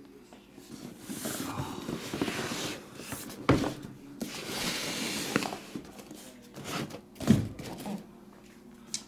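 Sealed cardboard trading-card boxes being handled and restacked on a table: cardboard rustling and sliding, with two thuds as boxes are set down, about three and a half and seven seconds in.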